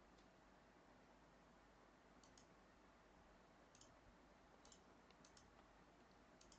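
Faint computer mouse clicks, several scattered irregularly and some in quick pairs, over a near-silent room.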